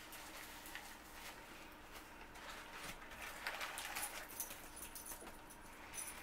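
Close-up chewing and clicking mouth sounds of a man eating a burger, with the paper wrapper crinkling about three to four seconds in.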